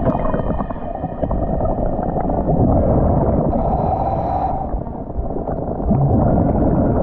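Muffled sloshing and gurgling of water around a scuba diver wading out into a lake, picked up close to or under the water surface; it starts abruptly and stays loud and steady.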